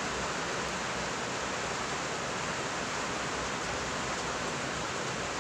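Steady, even whooshing noise of an electric fan running, unchanging throughout.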